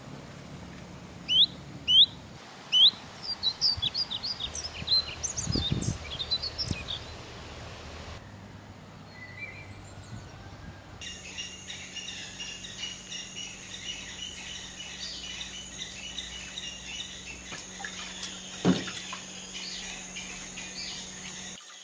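Wild birds singing: three loud sweeping whistled calls in the first few seconds, then a quick series of chirps. After that a dense, steady high-pitched chirping chorus sets in, with a single knock about three-quarters of the way through.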